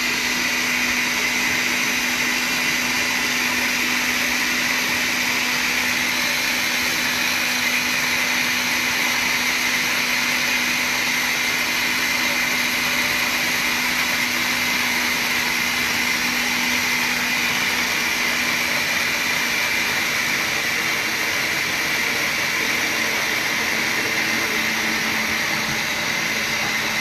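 Countertop blender running steadily on low, blending a tomato vinaigrette while oil is added through the lid to emulsify it.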